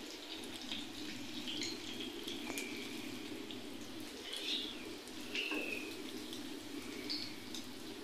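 Breaded potato patties (aloo tikki) shallow-frying in hot oil in a pan: a steady, fairly quiet sizzle with a few faint pops.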